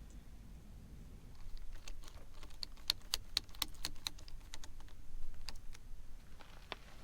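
Irregular run of light, sharp metallic clicks and taps, the handling of small parts of a motorcycle clutch perch and lever assembly, starting about a second in and dying away near the end.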